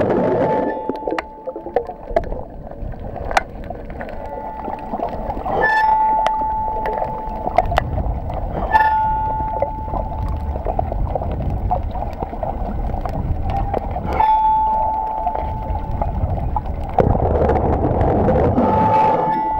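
Underwater sound: water rushing and bubbling, with sharp clicks and a steady high tone that comes and goes about five times, each time for a second or two.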